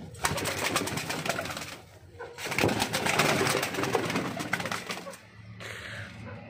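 Pigeons flapping their wings: two bursts of rapid wing beats, the second a few seconds long, then quieter shuffling.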